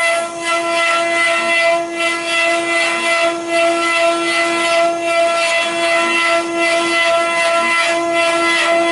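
Multi-spindle 4-axis CNC wood carving machine running: several router spindles whine at a steady pitch while their bits carve turning wooden balusters, with a cutting hiss that pulses in a regular rhythm.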